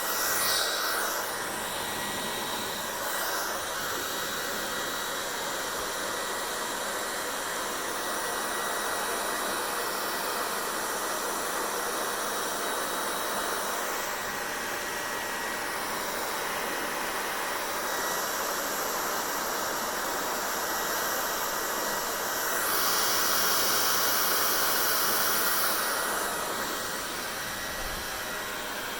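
Hair dryer blowing steadily, with a thin high whine over the rush of air; it grows louder and brighter for a few seconds about three-quarters of the way through.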